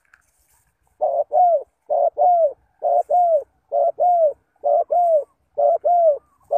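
Spotted dove cooing: a two-note phrase, a short coo then a longer falling coo, repeated steadily about once a second, loud and regular.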